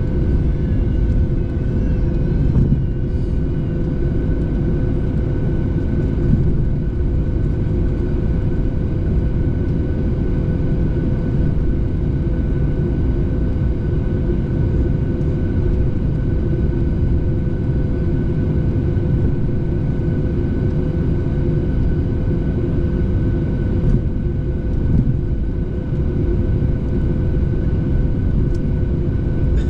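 Airliner cabin noise in flight: a steady low rumble from the engines and airflow, with a constant whine over it.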